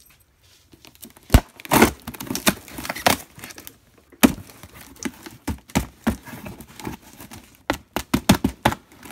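A storage box being ripped open by hand: a quick, irregular run of sharp tearing and crinkling noises, starting about a second in.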